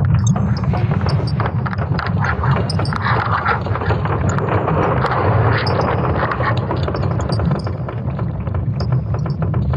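Sonification of Earth's magnetic field: a deep, steady rumble under dense crackling and clicking, which grows busier around the middle.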